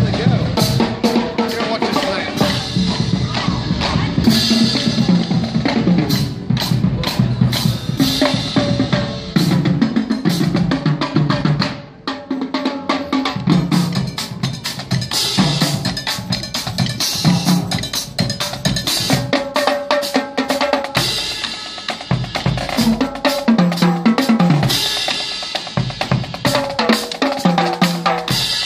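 A marching drumline of snare drums and a bass drum playing a fast cadence of rapid snare strokes, rim shots and rolls over bass-drum beats, with a brief drop about twelve seconds in.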